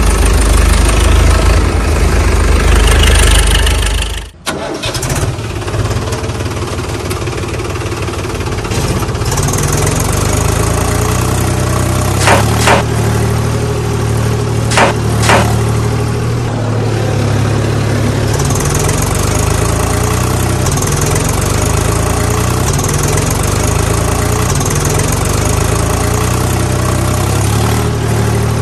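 Tractor engine running loud and low, cutting out about four seconds in, then starting again and settling into a steady run. A few short sharp knocks come around the middle.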